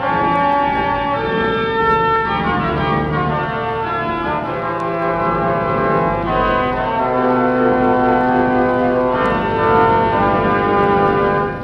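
A 4/21 Wurlitzer theatre organ playing a lively march-style passage of held chords that change every second or so, heard from a 1934 Columbia 78 rpm record with little top end.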